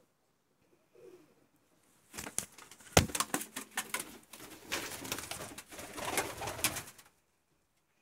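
Faint low cooing about a second in, then about five seconds of loud rustling and clattering with many sharp knocks, in a wooden bird pen.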